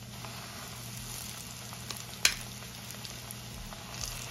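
Flour-coated chicken pieces sizzling steadily in hot frying oil as more pieces are laid into the pan, with one sharp click about halfway through.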